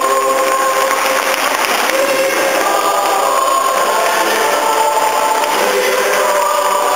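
Solemn music of long held notes, several pitches together, moving to a new chord every second or so.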